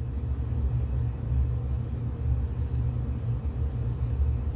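A steady low rumble with no clear pitch, wavering slightly in level.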